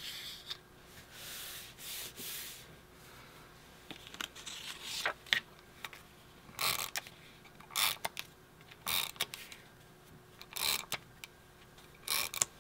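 Handheld adhesive tape runner pressed and drawn across a paper strip in short strokes, each a brief scrape, about one a second through the second half, with light paper handling between.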